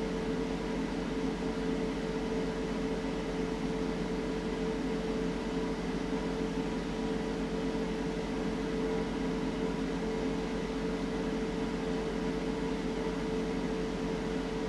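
A steady machine hum with several fixed tones over a low mains hum, unchanging throughout.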